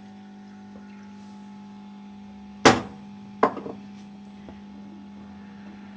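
Two sharp knocks of kitchenware about a second apart, the second ringing briefly, as the saucepan of milk is handled; a steady low hum runs underneath.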